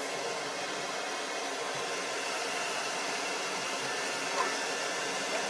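Handheld hair dryer blowing steadily.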